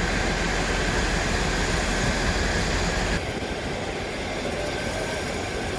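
Rice-unloading conveyor machinery running with a steady mechanical drone and a thin whine. About three seconds in the sound abruptly drops to a quieter, duller drone.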